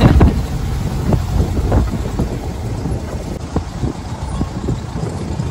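Open dune buggy driving over bare rock: a steady low rumble of engine and ride, with scattered knocks and rattles from the bumpy surface.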